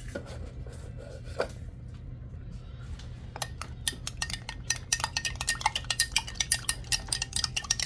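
Small metal spoon stirring cornstarch slurry in a glass cup, a few light taps at first, then rapid clinking against the glass from about three and a half seconds in, over a low steady hum.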